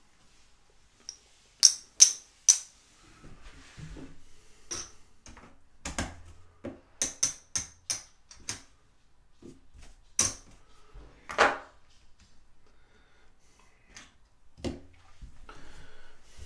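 Casino chips clacking against one another as they are picked up, stacked and counted: a run of sharp, irregular clicks, some in quick clusters.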